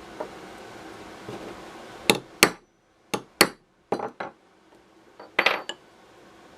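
Hammer striking a steel punch to deepen the crimp divots in a brass screwdriver ferrule resting in a steel bench block: about seven sharp metallic taps, mostly in quick pairs, starting about two seconds in.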